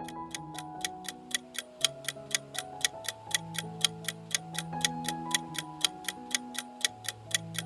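Countdown-timer ticking sound effect: an even clock tick about four times a second over a soft melody of held notes, marking the time to answer the quiz question.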